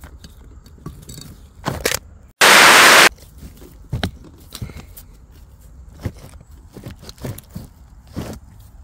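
Crackling and crunching of footsteps and handling in dry leaf litter and twigs, in short scattered bursts. About two and a half seconds in, a sudden loud, even burst of noise lasts under a second and cuts off abruptly; it is the loudest thing here.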